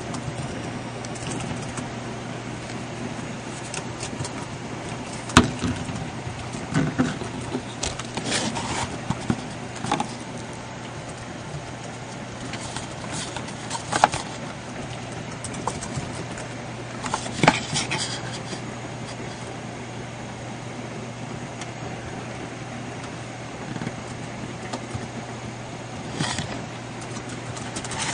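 Scattered clicks, taps and rustles of a cardboard box and a plastic tube being handled, over a steady low hum and hiss.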